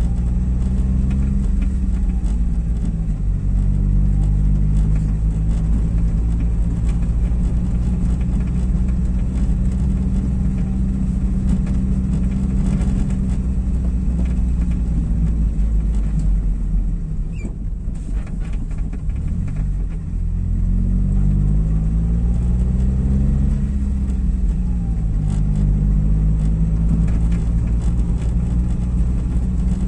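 Car engine and tyre rumble heard from inside the cabin while driving on a brick-paved road. The engine note climbs and drops a few times as the car speeds up and slows. It is quietest a little past halfway, then picks up again.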